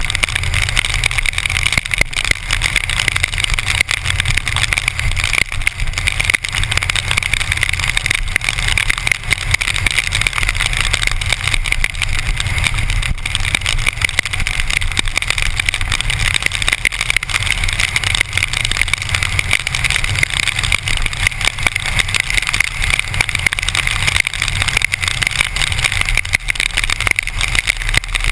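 Harley-Davidson V-twin motorcycle cruising steadily at highway speed in the rain: a low engine drone beneath loud, steady wind and wet-road noise, picked up by a GoPro in its housing.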